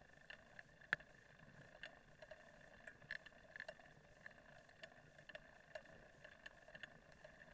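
Near silence: faint, irregular clicks and knocks, a few each second and the sharpest about a second in, over a faint steady hum.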